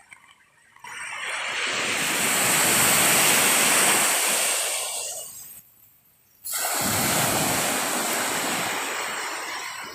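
Sea waves washing onto a beach in two surges. The first swells up and fades away; after a short lull the second starts suddenly and slowly dies away.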